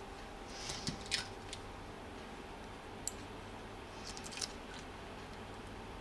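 Small clicks and scrapes of hard plastic and metal parts being handled on a disassembled hair dryer: a short cluster about a second in, a single sharp click around three seconds, and a few more clicks a little past four seconds.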